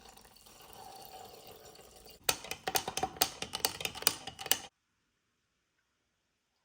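A soft rustling, then a quick run of sharp clicks and rattles from small hard objects for about two and a half seconds, cutting off suddenly near the middle.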